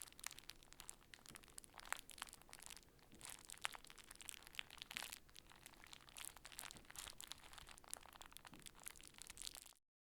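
Thin crinkly material scrunched up by hand as foley for a crackling fire: a continuous crackle with scattered sharp pops and clicks, cutting off suddenly near the end.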